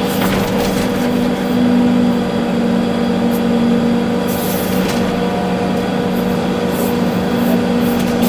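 Volvo EC380D excavator's diesel engine and machinery running steadily at working speed, heard from inside the cab, with a few short hisses.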